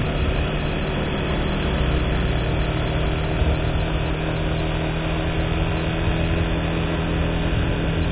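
Vehicle engine running at a steady cruise with the rush of wind and road noise, an even hum that holds steady throughout.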